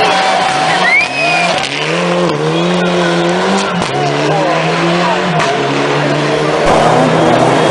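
Rally car engine revving, its pitch climbing and dropping in steps as it drives through the street stage.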